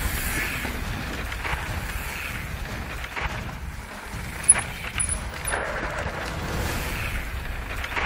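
Mountain bike tyres skidding and sliding on a dry, dusty dirt trail, with a sharp knock about four and a half seconds in and more knocks as the bike slides out and goes down. The slide-out is one the riders put down to braking with the front brake on a downhill bend.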